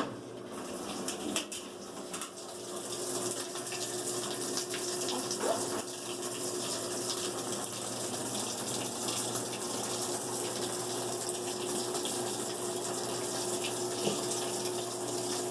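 GE washing machine filling with water at the start of a wash cycle. After a click right at the start, a steady rush of water pours in through its newly replaced water valve, with a steady low hum underneath.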